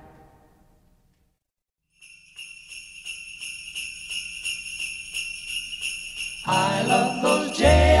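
Music fades out, followed by about a second of silence. Then sleigh bells start shaking in a steady rhythm as the intro of the next Christmas track, and the rest of the music joins in near the end.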